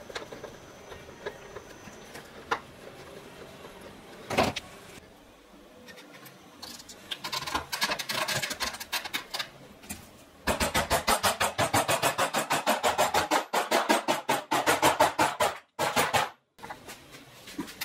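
Screwdriver turning cam-lock furniture fittings and bolts. There are scattered light clicks and a knock, then fast, even clicking, about six a second, for roughly five seconds, which stops abruptly.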